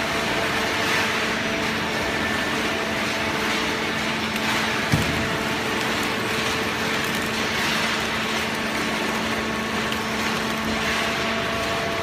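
Automatic horizontal paper and cardboard baler running: a steady machine hum with a few steady tones in it, and a single knock about five seconds in.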